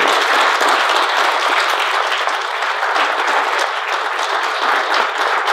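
Audience applauding: many people clapping in a dense, even wash of claps, louder than the talk around it.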